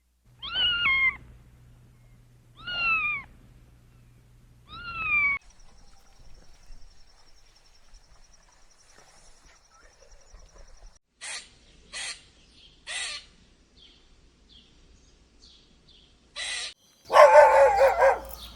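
An animal calling three times, short falling cries about two seconds apart, then a few short sharp sounds and a louder call near the end.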